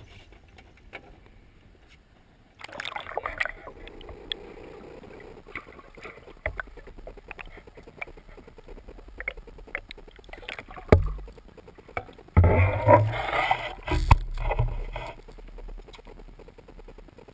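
Water splashing and sloshing against a small fishing boat, with scattered knocks and handling bumps, muffled by an action camera's waterproof housing that dips underwater partway through. The loudest splashing comes about twelve seconds in and lasts a few seconds.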